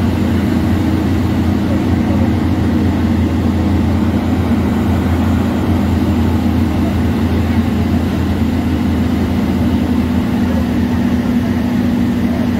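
Heavy diesel truck engine running steadily at idle, a deep, even drone.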